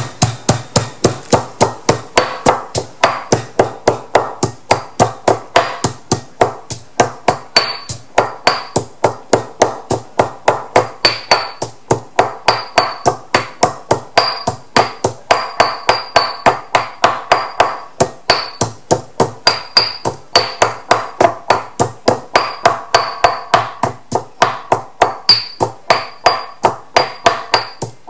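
Stone pestle pounding garlic, cilantro root and white pepper in a granite mortar, a steady rhythm of dull knocks at about three or four strikes a second as the aromatics are crushed into a paste.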